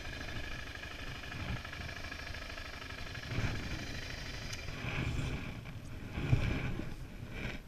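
Dual-sport motorcycle engine running as the bike rides along a sandy dirt track, with wind buffeting the microphone. Irregular low thumps from the bike going over the rough ground, the loudest about six seconds in.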